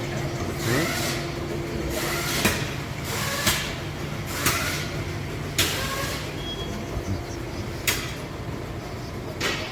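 Sharp clicks and snaps, about one a second, some with a short squeak, as the old front-hub vacuum hose on a Ford F-150 is worked free of its clips, over a steady low shop hum.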